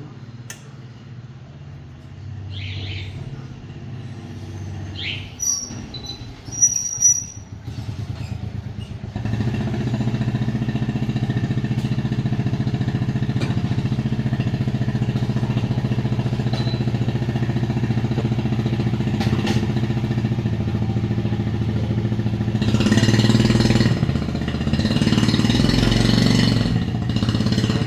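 Yamaha Sirius motorbike giving a steady, evenly pitched buzzing drone with a fast pulse, which starts about nine seconds in. Before it there are clicks and short high tones, and near the end two louder hissing bursts.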